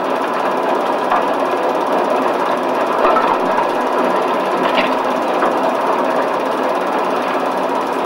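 Vessel pushing through broken ice floes: a steady, dense crackling and scraping of ice against the hull over the noise of the ship under way.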